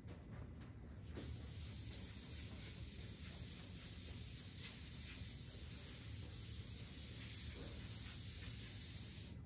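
Chalkboard eraser wiping across a chalkboard: a steady rubbing hiss that starts about a second in and cuts off just before the end.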